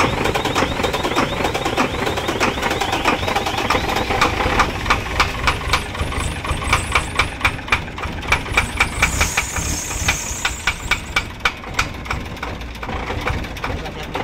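Howo 380 dump truck's diesel engine running rough with a regular knock, about three knocks a second, plainest a few seconds in. The knocking run, with white smoke and stalling, is the fault the mechanics set out to trace by checking the injectors for back-leak.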